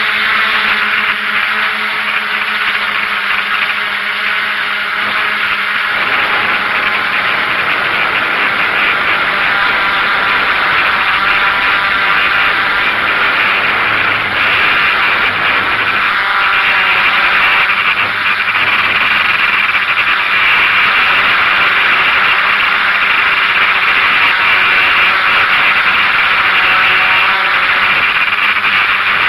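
Steady loud whir of a DJI F550 hexacopter's motors and propellers, picked up by the camera riding on it in flight. A faint low hum under the whir stops about six seconds in.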